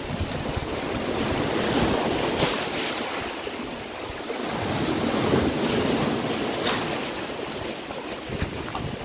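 Waves washing against a rocky shore, with wind on the microphone. The wash swells about two seconds in and again around five seconds, with a couple of brief clicks.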